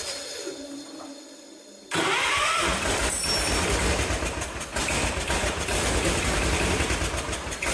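Cub Cadet 1650 garden tractor's single-cylinder Kohler engine being shut off and dying away, then restarted about two seconds in: it catches at once, revs up briefly and settles into steady running.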